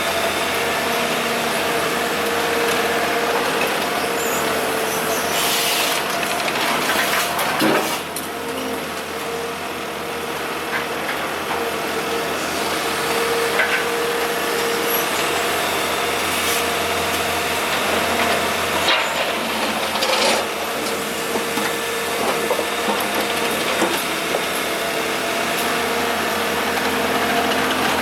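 Kobelco SK125W wheeled excavator's diesel engine running steadily under load, with the hydraulics working and a few sharp knocks from the bucket on broken asphalt.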